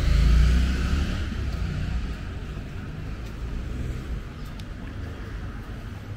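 A car passing on the road, its low rumble loudest at the start and fading away over about two seconds into steady outdoor background noise.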